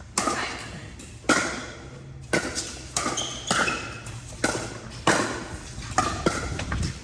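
Pickleball rally: paddles striking the hollow plastic ball in sharp pops about once a second, each ringing briefly in a large hall.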